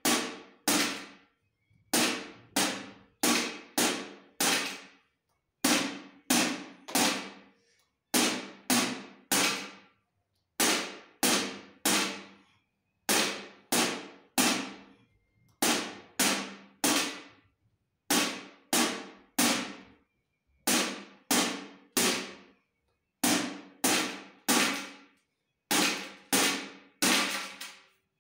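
A round metal tin beaten with a thin stick, in quick clusters of three or four sharp hits, each with a short metallic ring, the clusters repeating every two seconds or so.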